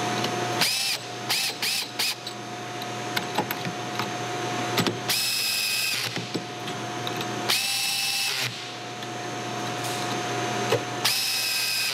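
Cordless drill-driver running bolts into a Clark pump's end block: a few short bursts, then three separate runs of about a second each, the motor spinning up and stopping as each bolt is snugged down during reassembly.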